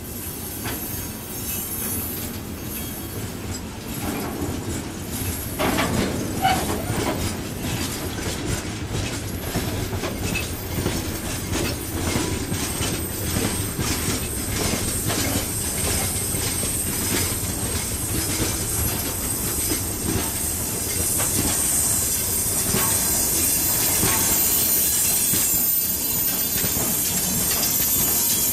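Freight wagons of a mixed train (tank cars, open wagons, tank-container flats) rolling past, their wheels clicking steadily over the rail joints. A thin, high, steady squeal from the running gear sets in about a third of the way through, and the sound grows gradually louder.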